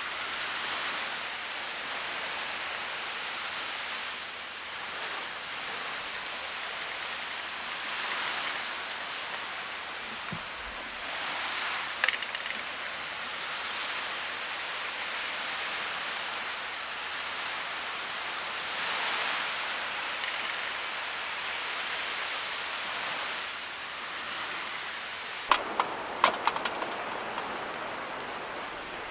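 Fish sizzling in a wire grill basket over charcoal, a steady hiss that swells and eases every few seconds as it is dabbed with sauce. A few sharp metallic clicks near the end as the basket is handled.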